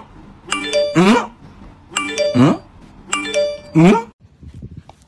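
A looped meme sound effect: a short bright chime like a doorbell, then a rising questioning "hm?" voice. It repeats four times, about a second and a half apart.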